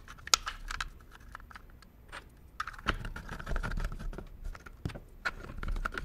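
3D-printed plastic parts of a model light switch clicking, tapping and scraping as a printed spring and its holders are fitted into the housing by hand. Many separate sharp clicks, the sharpest about a third of a second in, with a stretch of scraping in the middle.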